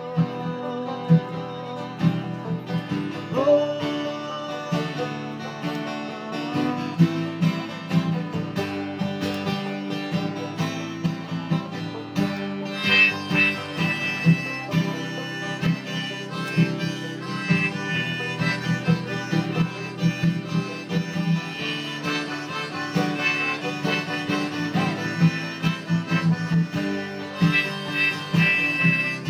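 Live acoustic band music: a strummed acoustic guitar and a picked banjo, with a man singing at the microphone at times.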